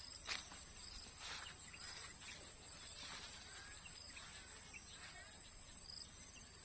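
Faint farm ambience: a steady high insect drone with short bird chirps scattered through, and a couple of brief soft rustles in the first second or so.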